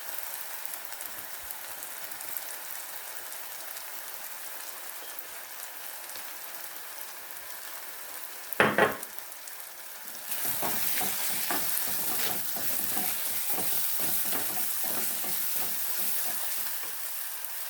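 Onion-and-tomato masala sizzling in a frying pan, with a short knock about halfway through. From about ten seconds in the sizzle gets louder and a spoon scrapes and stirs through the mixture.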